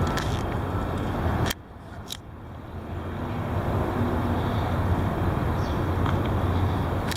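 Strong wind buffeting the microphone with a deep, steady rumble. It drops off suddenly about a second and a half in, then builds back up over the next few seconds.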